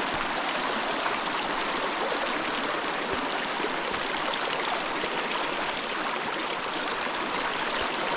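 A small river flowing at a shallow crossing: a steady, continuous rush of water.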